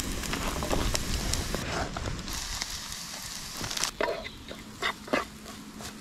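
Chopped onions and garlic sizzling in a frying pan on a camping stove, with a plastic spatula scraping and knocking against the pan a few times in the second half.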